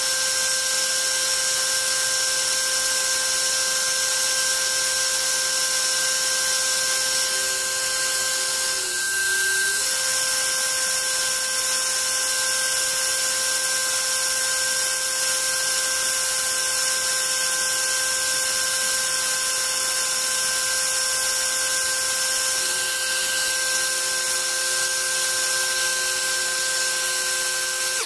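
A 900 kV 3536 brushless outrunner motor is spinning an 8x6 three-blade propeller at a steady part-throttle setting. It makes a steady whine of several fixed tones over the rushing hiss of the propeller's air.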